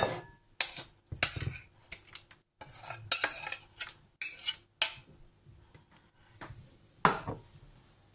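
A metal spoon scraping and knocking against a stainless-steel saucepan as soft boiled red lentils are scraped out into a bowl. The scrapes and knocks come in a broken series, the loudest at the very start.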